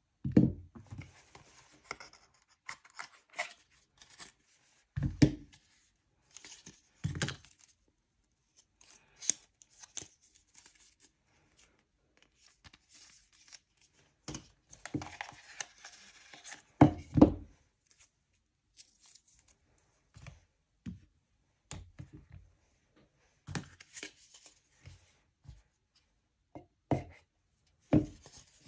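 Paper and cardboard packaging being handled and pulled apart: intermittent rustling, scraping and tearing of paper, broken by several dull knocks as box pieces are set down on a desk.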